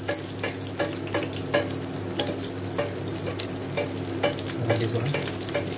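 Chicken frying in shallow hot oil in a steel pot, sizzling with many small pops as a plastic spoon scoops the oil and pours it over the top of the meat, which is not fully submerged. A steady low hum runs underneath.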